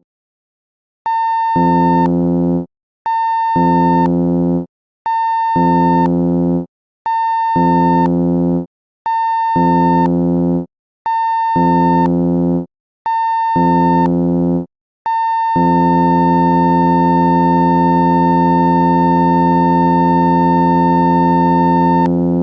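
Cruise ship general emergency alarm sounding seven short blasts and one long blast, the signal that calls everyone on board to their muster stations. Each blast opens with a high tone, and a deeper tone joins about half a second later.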